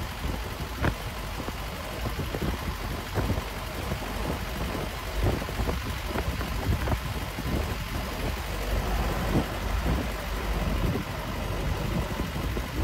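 Steady low rumble of motor vehicles on a highway, broken by irregular short knocks.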